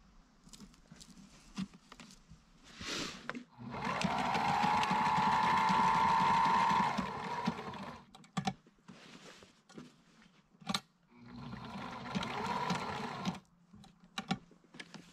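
Sailrite Ultrafeed walking-foot sewing machine stitching a Velcro strip onto canvas. It runs in two bursts: the first about four seconds long, with a motor whine that rises as it gets up to speed and then holds steady; the second, shorter one a few seconds later. A few light handling clicks come between them.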